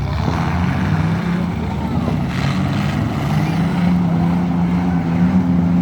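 Demolition derby car engines running, with one engine holding a steady drone that rises a little in pitch over the last couple of seconds.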